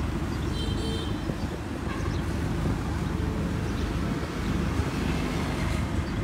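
Steady low rumble of idling vehicle engines and passing street traffic.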